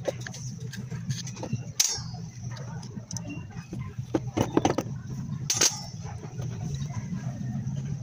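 Scattered clicks and light metal taps of hand work on a removed, opened carburetor, strongest about two seconds in and again around five seconds, over a steady low hum.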